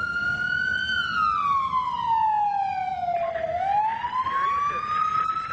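Ambulance siren wailing, heard from inside the vehicle's cabin over engine and road noise. Its pitch falls slowly from about a second in, then rises again from about three and a half seconds in.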